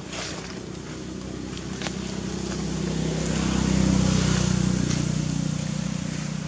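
A motor engine passing by: a steady low hum that grows to its loudest about four seconds in and then fades.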